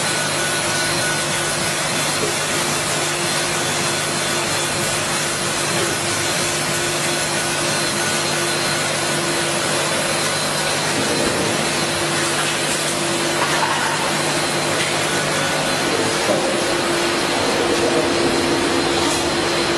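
A 6040 laser engraving machine running while it engraves acrylic: a steady whooshing machine hum with a constant tone.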